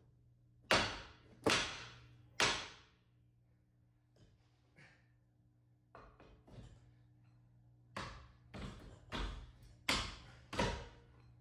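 Hard knocks as a hand tool strikes the front hub and suspension parts: three loud blows about a second apart, a pair of soft taps midway, then a quicker run of five blows near the end.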